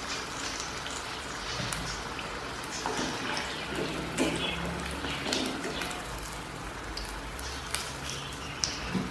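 Chicken wings deep-frying in hot oil: a steady crackle and sizzle of bubbling oil, with a few sharper pops and clinks as a wire skimmer lifts the pieces out of the pan.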